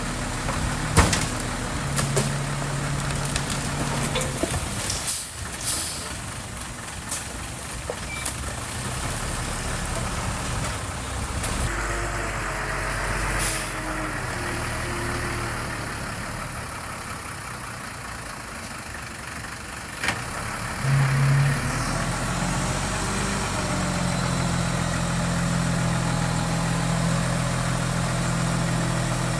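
Diesel engine of heavy construction machinery running steadily, with scattered knocks and clanks in the first several seconds and a short, louder surge about three-quarters of the way through.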